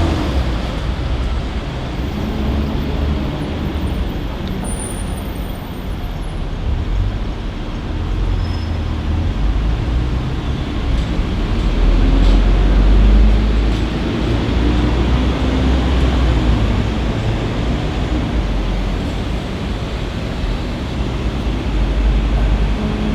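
Continuous low rumble of road traffic, swelling as a heavy vehicle passes about halfway through.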